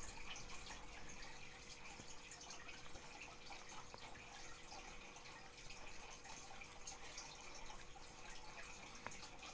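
Faint room noise with a steady low hum and scattered soft ticks.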